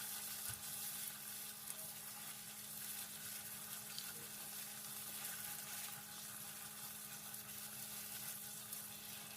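Onions and ginger-garlic paste sizzling faintly in hot oil and butter in a pan, a fine steady crackle with a steady hum beneath.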